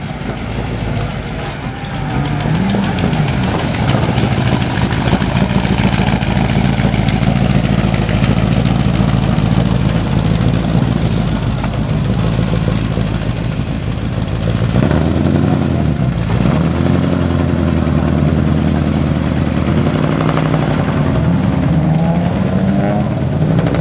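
Car engine running, revving up and easing back down a few times.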